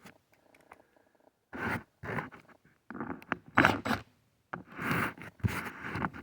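Short rasping scrapes of a hand tool working bolts loose on a small chainsaw's muffler, several bursts in a row starting about a second and a half in.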